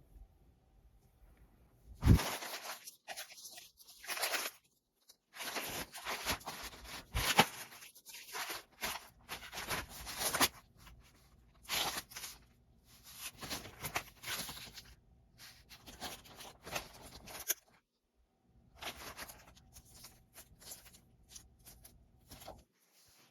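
Irregular crinkling and rustling handling noises in bursts of a second or two, with a sharp knock about two seconds in.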